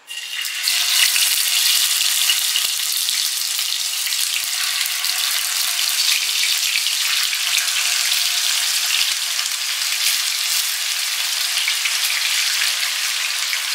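Masala-coated seer fish (vanjaram) pieces sizzling in hot oil in a shallow frying pan. The sizzle starts sharply about half a second in, as the first piece goes into the oil, and holds steady while more pieces are laid in with tongs.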